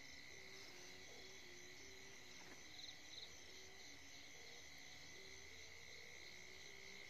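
Near silence with a faint night chorus: a steady high insect trill, with short low notes repeating about every half second.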